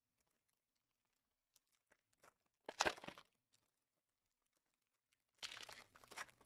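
Trading-card pack wrappers and cards being handled, crinkling and tearing: one short, sharp burst about three seconds in, then a longer rustle starting near the end.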